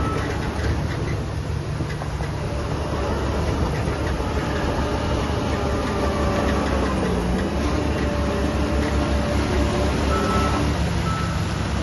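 Heavy diesel earthmoving machinery running steadily, its engine note dipping briefly about seven seconds in. A reversing alarm beeps about once a second near the end.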